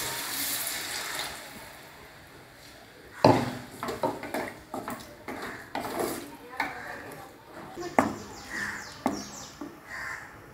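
Tamarind water poured from a mug into a clay pot of simmering curry, a hissing splash for about the first second. Then a wooden spatula stirs the curry, knocking sharply and irregularly against the clay pot.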